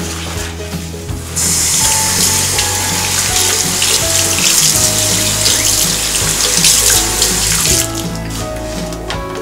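Bathroom basin tap running, water splashing over a sponge being rinsed and squeezed in the stream. It starts about a second and a half in and is shut off near the end, over background music.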